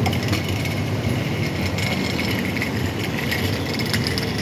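Vehicle engines idling steadily in city street noise, with a low hum and scattered light rattles.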